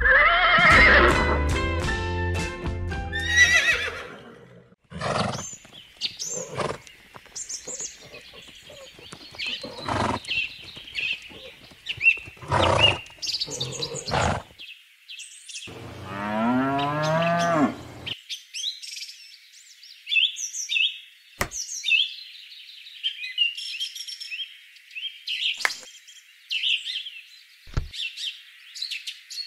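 Background music with drums that stops about four seconds in. It gives way to added animal sound effects: one long animal call around the middle, then bird chirping, with a few light taps near the end.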